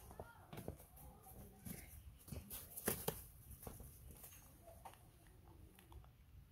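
Faint scattered taps and rustles of a small monkey scampering on all fours over grass and bare dirt, the sharpest tap about three seconds in.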